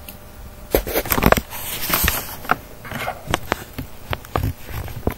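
A string of irregular clicks, knocks and short rustles starting about a second in, with the busiest stretch soon after.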